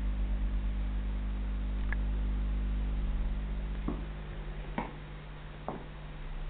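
Steady low hum from the aquarium's running equipment, which fades a little after about four seconds, with three light clicks about a second apart in the second half.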